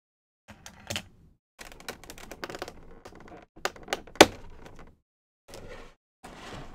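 Stiff clear plastic blister packaging being handled and pulled apart, crackling and clicking in an irregular run, with one sharp snap about four seconds in.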